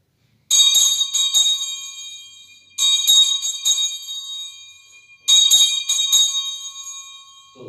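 Altar bells shaken three times, each a quick cluster of strikes that rings on and fades away. They mark the elevation of the host at the consecration of the Mass.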